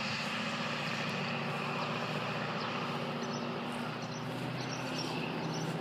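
Steady engine and road noise of a moving car, an even rumble with a low hum.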